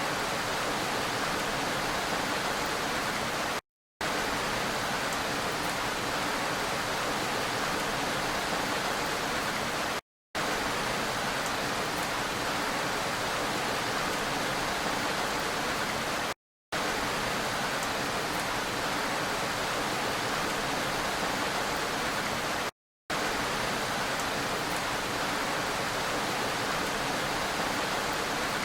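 Steady, even hiss of heavy rain from a looped sound-effect recording. The sound drops out completely for a split second four times, about every six seconds, where the loop restarts.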